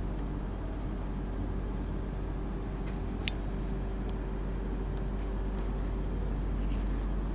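Steady low machinery hum with a deep, even drone, and a couple of faint short ticks about three seconds in.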